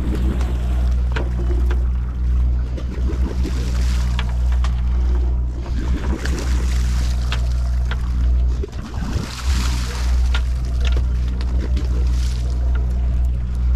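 Boat engine running with a steady low drone, with scattered clicks and knocks and water sloshing along the hull.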